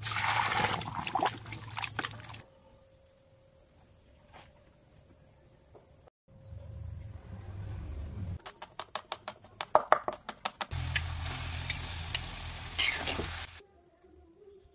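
Food-preparation sounds in quick succession. First, raw octopus being handled and rubbed in a plastic colander. Then a rapid run of about ten snips from kitchen scissors cutting octopus tentacles, followed by a few seconds of steady sizzling from frying.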